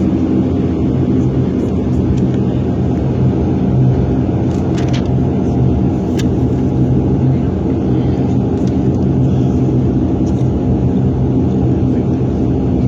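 Bombardier Dash 8 Q400's Pratt & Whitney PW150A turboprops and propellers droning steadily, heard inside the cabin, with a steady low propeller hum.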